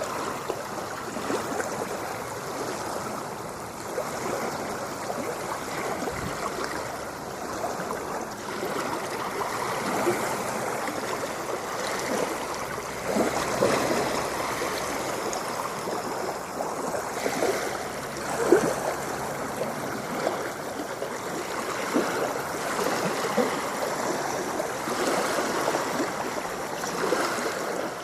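Ocean water lapping and washing close by: a continuous wash broken by many small splashes, with one louder splash a little past the middle.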